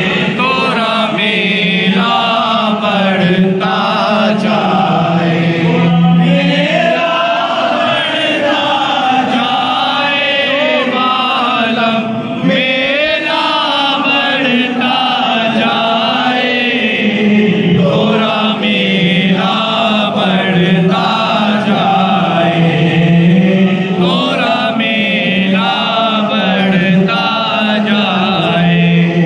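Men chanting a devotional manqabat, one voice sung into a microphone, continuously and loudly.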